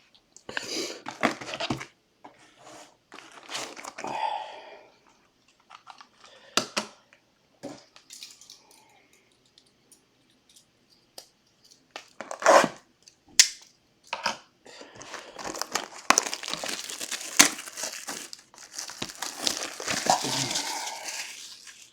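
Plastic shrink-wrap being torn and crinkled off sealed boxes of trading cards, in scattered short bursts and then a longer stretch of continuous crinkling near the end.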